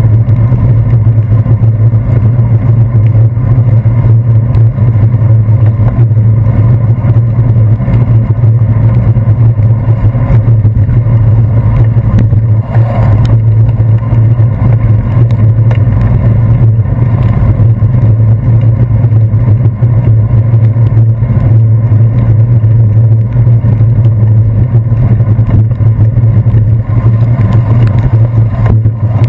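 Loud, steady low rumble from a bicycle riding on a wet street, heard through a handlebar-mounted GoPro Hero 2 camera housing: road vibration and wind buffet the muffled microphone.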